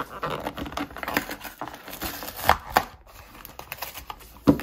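Clear plastic blister of a Hasbro WWF action-figure card being pried and peeled off its cardboard backing by hand: crinkling and crackling plastic with several sharp snaps, the loudest about halfway through and just before the end.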